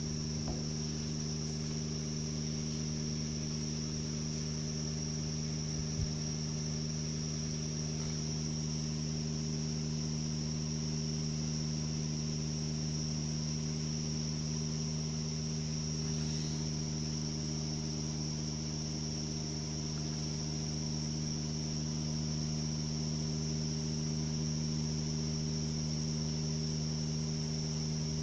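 Steady high-pitched whine over a constant low hum from a Subaru Outback's 5-speed manual gearbox with low-range reducer, running at an even speed: the sign of a worn input bearing in the reducer/gearbox.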